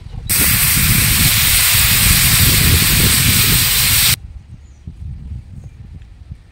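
Water poured into a hot iron pan of frying masala, hissing and sizzling loudly with steam. The sizzle starts just after the beginning and cuts off abruptly about four seconds in, leaving only a faint low background.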